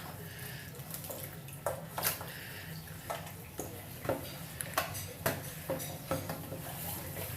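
Tap water running while shampoo is rinsed out of a doll's hair, with irregular light knocks and clatters throughout.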